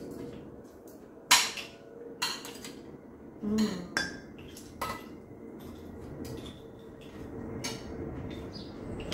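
Cutlery clinking against plates and dishes while people eat: a string of separate sharp clinks, the loudest about a second in.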